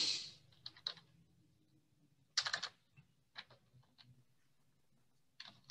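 Faint, scattered computer keyboard keystrokes and clicks, with a quick run of several about two and a half seconds in, over a faint low room hum.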